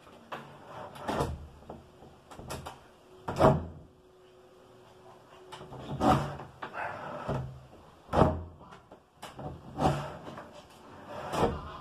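Wooden interior door being moved and knocked against its frame: a series of irregular knocks and thuds, the loudest about three and a half seconds in.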